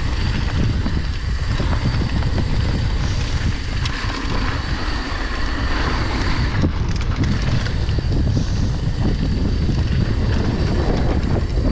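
Wind buffeting an action camera's microphone over the rush of mountain bike tyres on a dirt trail at speed, with the bike's frame and drivetrain rattling in small clicks throughout.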